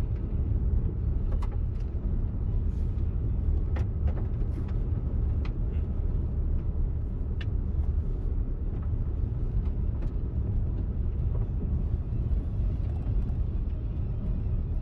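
Car driving, heard from inside: a steady low rumble of tyres and engine, with scattered light ticks and rattles.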